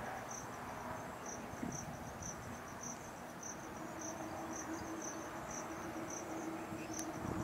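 An insect chirping steadily: high-pitched chirps about twice a second over a fainter continuous trill. A faint steady low hum joins about halfway through.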